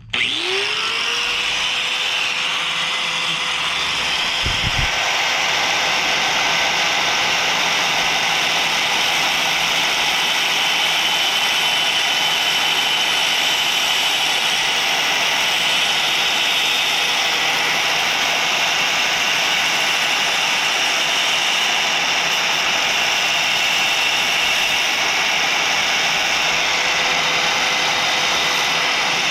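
Electric grinder switched on, spinning up quickly to a steady whine and running for nearly half a minute with a grinding hiss, then winding down near the end.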